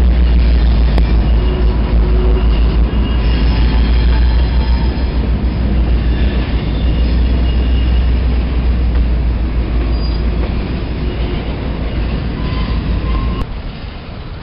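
Freight train of covered hopper cars rolling past close by: a heavy low rumble of wheels on rail, with faint high-pitched wheel squeals now and then. About 13.5 seconds in the sound drops suddenly, and the train goes on more quietly.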